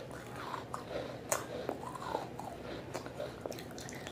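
Wet pieces of fired clay pot being crunched and chewed, a run of small crisp crackles with one sharper snap about a second in.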